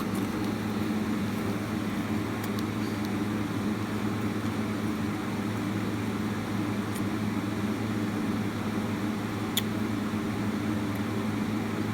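A steady low mechanical hum, with a faint click about ten seconds in.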